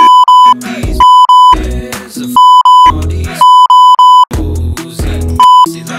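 Censor bleeps: a steady high beep tone sounded about ten times in short clusters, each one blanking out the rap track's explicit lyrics, with the hip-hop beat coming back in between.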